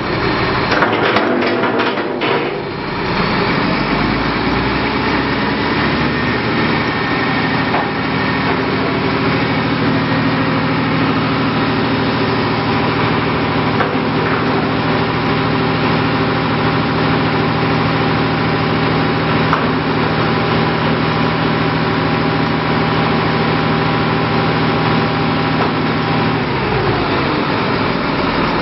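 Wheel loader's diesel engine running steadily while the tree spade's hydraulic blades are lowered and closed, with a few knocks in the first couple of seconds and a change in the engine note near the end.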